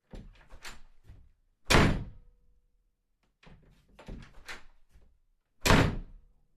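A door opened and shut twice: a few light clicks and rattles as it is worked, then a loud bang as it closes, about four seconds apart.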